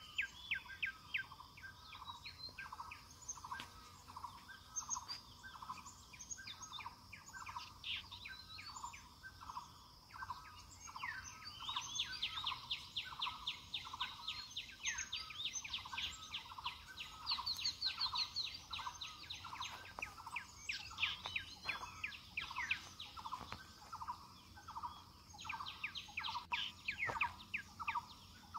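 Several wild birds calling at once. One repeats a short, low note about twice a second throughout. Others add fast runs of sweeping higher notes, densest in the middle and again near the end, with scattered high chirps.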